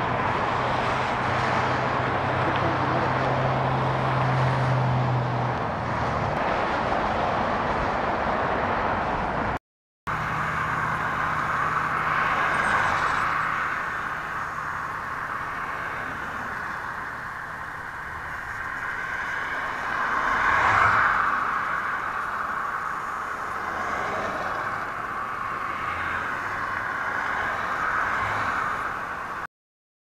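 Road traffic on a multi-lane boulevard: a steady wash of passing cars, with a low engine hum for the first few seconds. The sound breaks off briefly about ten seconds in, then the traffic carries on, with a louder swell as a vehicle passes about twenty seconds in. It stops abruptly just before the end.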